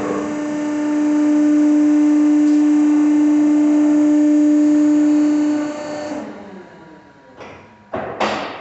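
Harmony vertical downstroke baler's electric hydraulic power unit running under load with a loud, steady whine, which winds down about six seconds in. A few sharp metallic clunks follow near the end.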